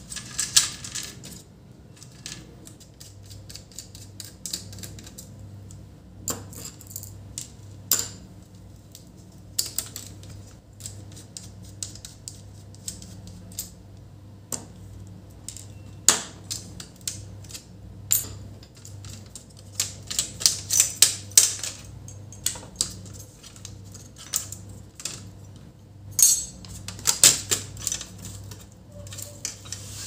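Irregular small clicks and taps of plastic and metal as hands unlatch ribbon-cable connectors and free an HP ProBook laptop's motherboard from its chassis. Quick runs of clicks come about two-thirds of the way in and again near the end, over a faint low hum.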